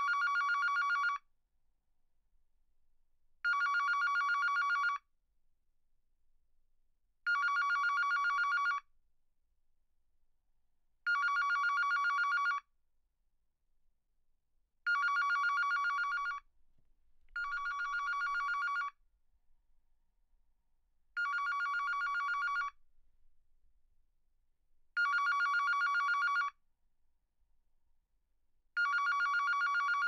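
Digital telephone ringing: a warbling electronic ring tone in bursts of about a second and a half, repeating about every four seconds. One ring about two-thirds of the way through is quieter than the rest.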